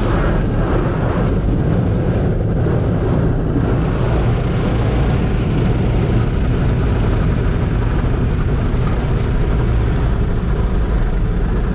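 Tunnel car wash heard from inside the car's cabin: water spray and cloth wash brushes sweeping over the windshield and body, a steady low rumble.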